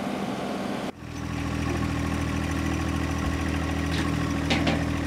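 For about a second, a compact tractor runs with its loader-mounted rotary mower. Then it cuts sharply to a tractor engine idling steadily with a low, even hum.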